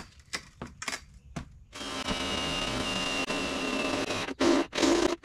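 Power drill with a step bit cutting a half-inch hole through the trailer's sheet-metal wall: a steady run of about two and a half seconds with a high whine that sinks slightly in pitch under load, then two short bursts of the drill near the end. A few light clicks come before it.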